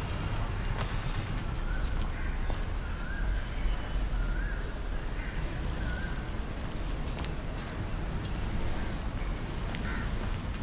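Street ambience: a steady low traffic rumble, with a few short wavering high notes a couple of seconds in.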